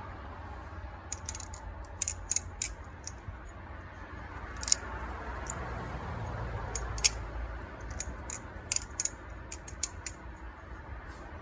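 Kershaw Lucha balisong being flipped: sharp metallic clicks and clacks at irregular intervals as the handles swing and strike each other and the blade's tang, over a low steady rumble.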